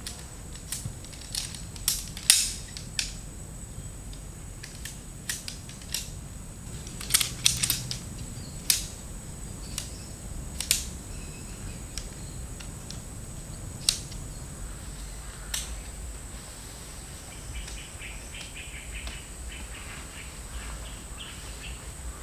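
About a dozen irregular sharp snaps and clicks, loudest in the first half, over a steady high-pitched insect drone. Faint chirping comes in near the end.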